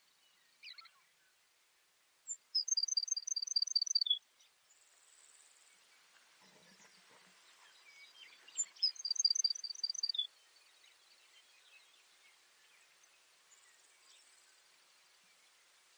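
Baird's sparrow singing twice, about six seconds apart. Each song opens with a thin high note, runs into a quick trill of about seven doubled notes, and drops to a lower closing note.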